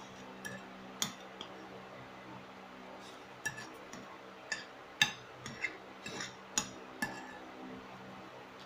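Metal spoon clinking and scraping against a ceramic plate while eating: about a dozen sharp, irregular clinks, bunched in the second half, the loudest about five seconds in.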